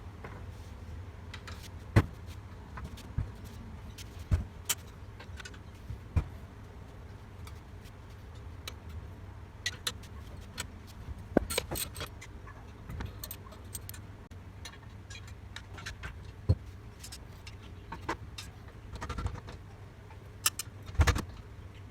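Spanners and bolts clinking and knocking on a steel cylinder mower's frame as the sole plate bolts are undone: scattered, irregular metal clicks and taps over a steady low hum.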